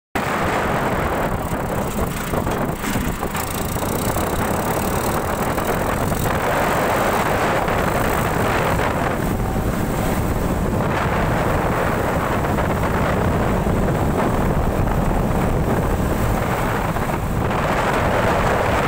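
Sonalika 47 hp tractor's diesel engine running steadily under way along a road, with wind buffeting the microphone.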